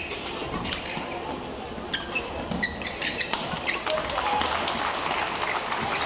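Badminton rally: sharp racket strikes on the shuttlecock and short shoe squeaks on the court, over the steady noise of an arena crowd that grows a little louder about four seconds in.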